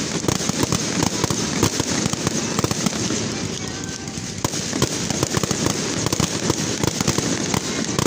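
Fireworks going off in quick succession: a continuous stream of sharp pops and crackles as rising comets burst into stars overhead.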